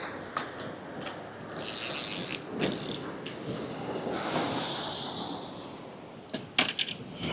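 Spinning fishing reel being cranked in two short bursts about two seconds in, with sharp clicks from tackle being handled near the end, over surf washing on the rocks.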